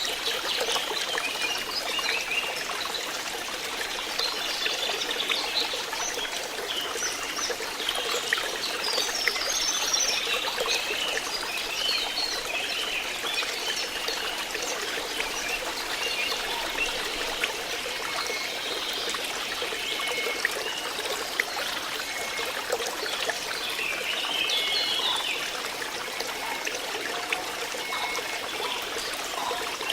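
Water flowing and trickling steadily, like a small stream, with short chirps now and then.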